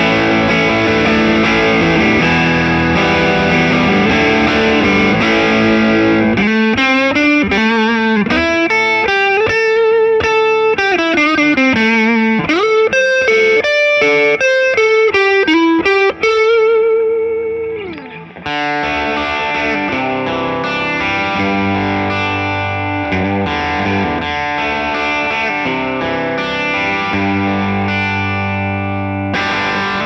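1970 Gibson ES-330 thinline hollow-body electric guitar with P-90 pickups, played through an amplifier. Chords ring at first; from about six seconds in a single-note lead line with vibrato and a bent note follows, dies away briefly around eighteen seconds, and then sustained chords return.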